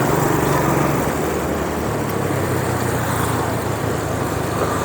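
Motorbike engine running steadily at cruising speed, with a faint waver in pitch, under a steady rush of wind and road noise from riding.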